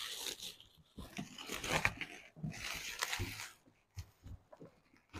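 Plastic stretch-film wrap being cut and pulled off a cardboard box, crinkling and tearing in three bursts of about a second each, followed by a few light knocks.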